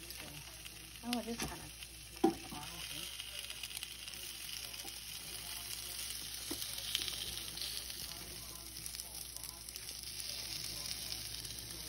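Chicken pieces sizzling steadily on the hot grill plate of a Ninja Smart XL indoor grill, with a sharp knock about two seconds in and a few light clicks as tongs move the pieces.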